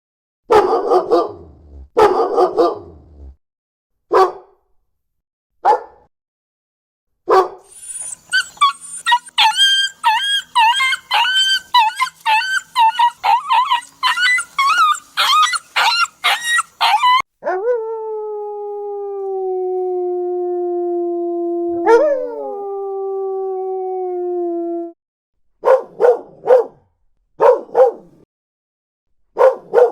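Dogs barking, whining and howling in turn. First come a few separate barks. Then comes a run of quick, high-pitched yelping cries, then one long, steady howl that falls slightly in pitch with a catch partway through, and then more barks near the end.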